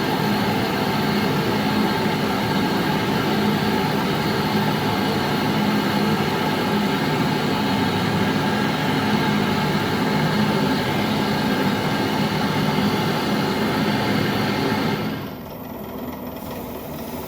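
Gas torch flame burning steadily while it heats the drilling horn of an ultrasonic drill to melt solder onto the needles; the flame cuts off suddenly about 15 seconds in, leaving a quieter background hum.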